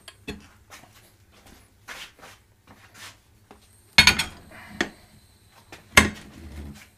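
Steel mount/demount bar of a mini manual tire changer clanking against the wheel rim and center post while prying a tire bead off the rim. Several light knocks, then two loud metal clanks, about 4 and 6 seconds in.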